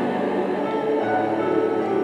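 Large mixed choir singing, holding sustained chords.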